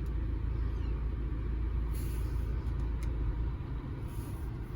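The 2013 BMW X3's diesel engine idling, a steady low rumble that drops off about three and a half seconds in, with a couple of faint clicks.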